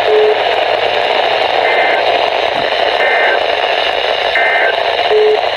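Weather radio receiver hissing with static, with three short bursts of EAS/SAME digital data tones about a second apart, typical of the end-of-message code that closes a weekly alert test. A brief low tone sounds near the start and again near the end.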